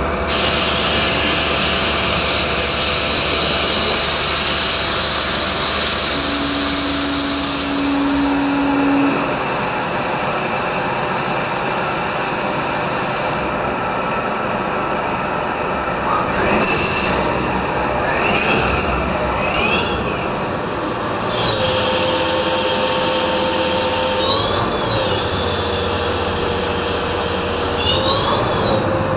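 EMCOTURN E65 CNC lathe machining brass bar stock: a steady machine hum with a high hiss during the first third. From a little past halfway, whining tones rise and fall in pitch several times as the spindle changes speed.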